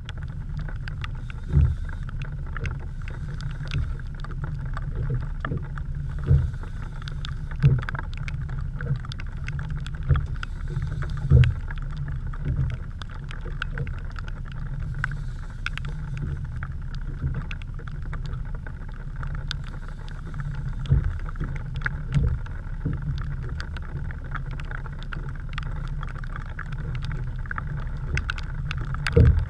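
Heavy rain and wind on a camera in an open fishing boat: a steady wind rumble on the microphone with raindrops ticking on the camera housing, and several louder low thumps scattered through.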